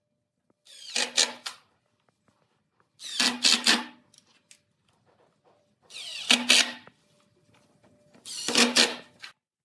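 Cordless impact driver driving wood screws through pine battens into pallet boards: four short whirring bursts of about a second each, a few seconds apart, one for each screw.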